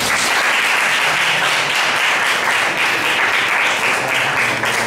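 Audience applauding, breaking out suddenly and going on steadily.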